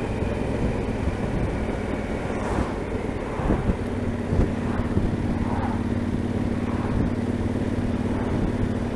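Yamaha Super Tenere XT1200ZE parallel-twin engine running through its Delkevic exhaust, a steady low rumble, with a steady hum joining about four seconds in.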